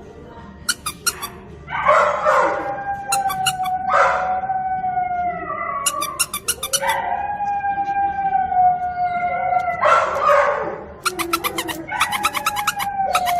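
A dog howling: several long, drawn-out howls that sag slowly in pitch, broken up by short, loud, rough outbursts between them.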